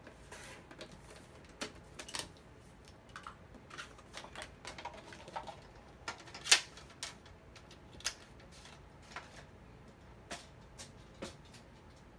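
A plastic paper trimmer and cardstock being handled: scattered light clicks and taps, with one sharp, much louder click about six and a half seconds in.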